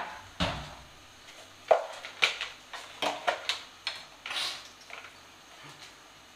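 A string of sharp knocks and clicks of kitchen handling, with a short rustle in the middle, as a mixer grinder is set up on the counter and its power cord is uncoiled. The grinder is not running.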